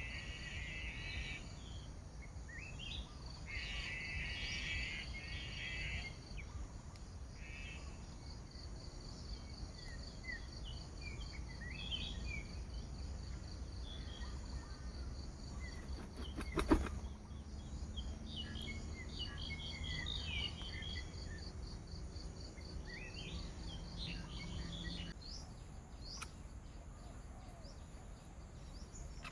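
Forest ambience: a steady, pulsing high insect drone with small birds chirping on and off, and buzzy insect calls in the first few seconds. One sharp click stands out a little over halfway through.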